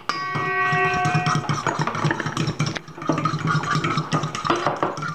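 A stainless steel mixing bowl rings out as it is struck, the ring dying away over about a second and a half, then a fork beats egg yolks in the bowl with quick clicks against the metal. A steady low hum runs underneath.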